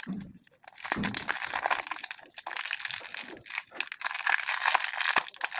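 Plastic packaging of modelling clay crinkling and crackling continuously as it is opened and handled.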